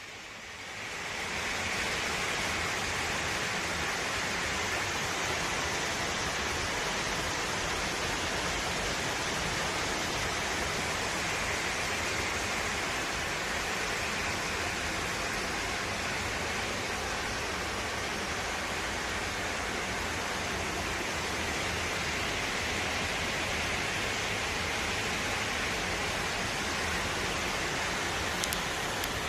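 Steady rain, an even dense hiss that builds up over the first second or two and then holds.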